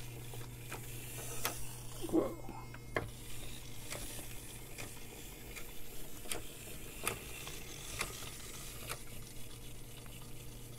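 Small geared DC motors of a D2-6 line-following robot kit running, with its plastic gearbox clicking about once every second or so. The clicks come from a drive gear with teeth melted away by a soldering iron catching as it turns, and the wheel jams.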